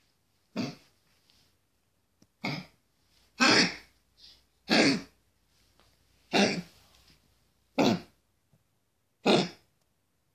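A run of seven short, harsh coughs, about one every one and a half seconds, with a small extra hack after the third. This is the cough that was the first sign of congestive heart failure.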